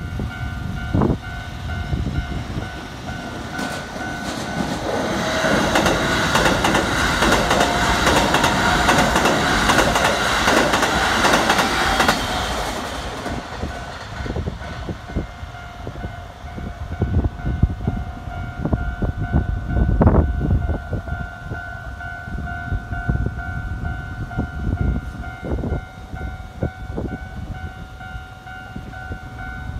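A Keikyu electric train passing close by over the level crossing, its wheels clattering over the rail joints, loudest from about five to thirteen seconds in. A steady ringing tone sounds underneath, and a few scattered knocks follow as the train moves off.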